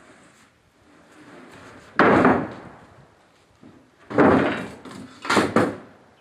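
Loud wooden bangs and thuds of building lumber being handled: one heavy bang about two seconds in, a longer one about four seconds in, then two quick hits close together.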